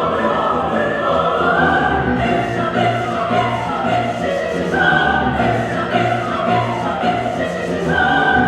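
Mixed choir singing, many voices holding chords, with some lines sliding up and down in pitch.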